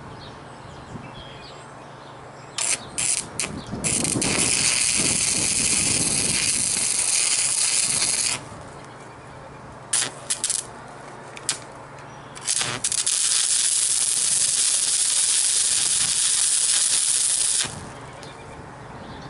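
Stick welding arc from a 3/32-inch 7014 rod on steel, laying a tack weld. It opens with a few short bursts as the arc is struck, then a steady hiss for about four seconds. More brief strikes follow, then a second steady run of about five seconds that cuts off near the end.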